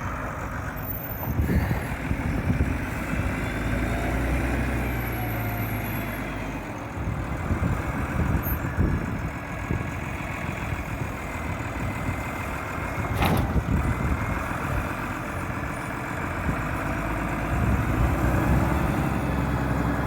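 Engine of a heavy earth-moving machine running, with scattered knocks and one sharp clank about 13 seconds in.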